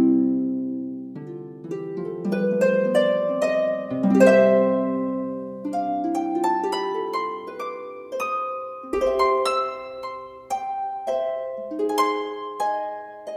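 Relaxing instrumental background music of plucked strings playing flowing arpeggios, each note starting sharply and ringing as it fades into the next.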